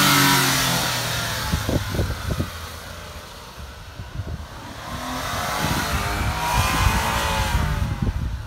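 A 1994 Suzuki Carry kei truck's small three-cylinder engine drives past close by, its pitch dropping as it goes. It fades, then comes round and passes again a few seconds later, rising and falling in pitch. Wind buffets the microphone in between.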